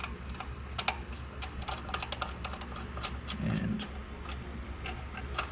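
Quick, uneven run of light metallic clicks and taps from a mechanic handling a bolt and hand tools in a car's engine bay while fitting a bolt.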